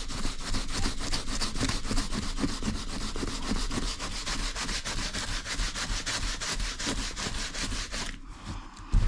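P180 glass paper scrubbed in fast back-and-forth strokes over Alcantara seat fabric, lifting the matted, pilled fibres. The strokes stop about eight seconds in, and a single knock follows near the end.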